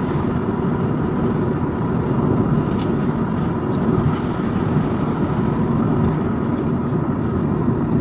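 Car driving at road speed, steady engine and tyre road noise heard from inside the cabin.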